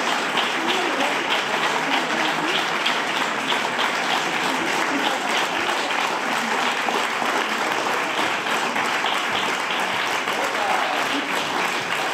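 Theatre audience applauding: many hands clapping in a dense, steady stream that holds an even level throughout.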